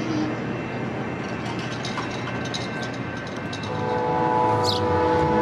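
Train on street-running track rumbling with a few light clicks, then its horn sounds a steady multi-tone chord from about two-thirds of the way through, getting louder.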